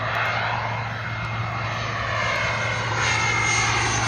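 Small jet aircraft on low final approach, its turbofan engines giving a steady high whine over a rushing noise that grows louder as it comes closer.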